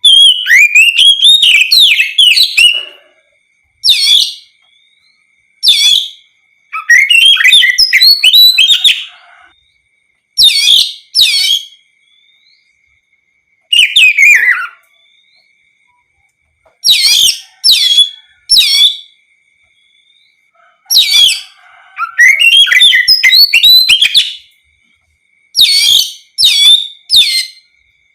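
Oriental magpie-robin (kacer) singing in loud, full voice: rapid phrases of clear gliding whistles and chirps, each lasting one to three seconds, with short pauses between them.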